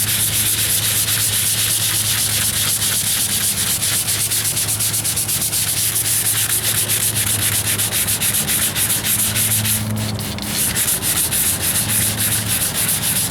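Wet sanding of filler primer by hand with 220-grit sandpaper and soapy water: quick, even back-and-forth rubbing strokes, with a short break about ten seconds in.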